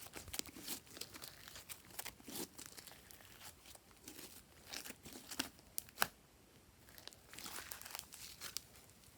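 Fluffy slime being squished and pulled by hand: irregular sticky crackles and small pops, the sharpest about six seconds in.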